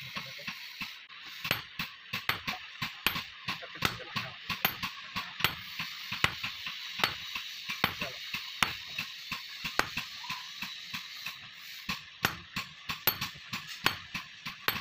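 Hand hammers striking a red-hot steel block on an anvil: a run of sharp metallic blows, roughly two to three a second, with short ringing after each.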